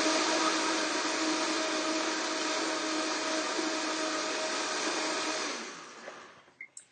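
High-powered countertop blender running steadily as it purées steamed cauliflower, carrots and cashews into a thick dip, then winding down and stopping about six seconds in.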